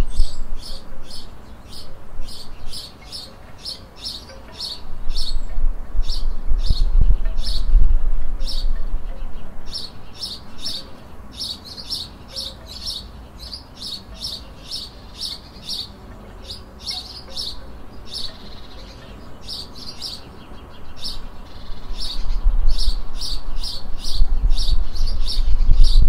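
A small songbird chirping over and over, short sharp chirps at about two a second with a few brief pauses. A low rumble swells and fades a couple of times underneath.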